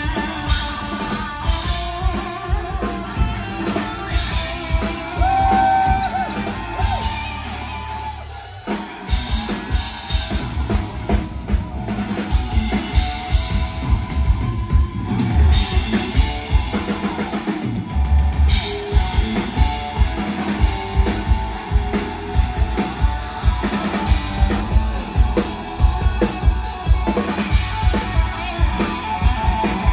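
Live rock band playing loud with electric guitar, bass and drum kit. About eight seconds in the band drops briefly to a held low note, then the drums come back in with a driving beat.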